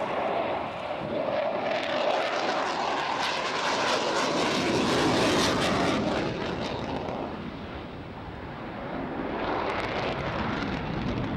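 Jet noise of a Panavia Tornado's twin RB199 turbofans as the jet flies past, growing louder to a peak about five seconds in, fading, then building again near the end.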